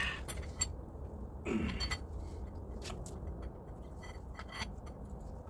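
Light metallic clinks, clicks and scrapes of a socket and bar working a stuck steel bolt back and forth to shake it loose, with one short falling squeak about a second and a half in.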